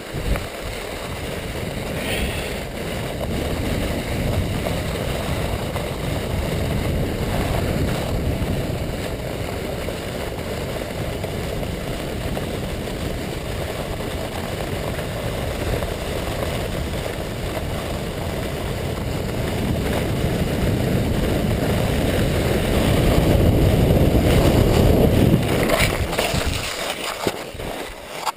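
Rodel sled sliding fast down groomed snow: a steady rushing scrape of runners over the corduroy, with wind on the microphone. It grows louder late on as snow sprays up, then falls away sharply just before the end.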